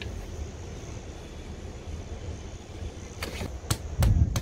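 A steady low rumble, then a few sharp knocks about three seconds in and a heavier thump near the end.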